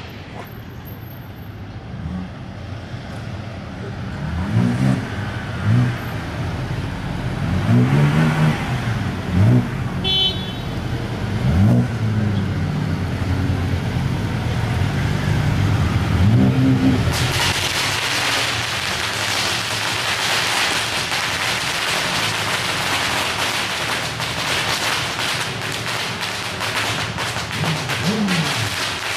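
Motorcycle engines revving in short rising-and-falling blips, with a brief horn toot about ten seconds in. From about seventeen seconds a long string of firecrackers crackles without a break, with a few more engine revs near the end.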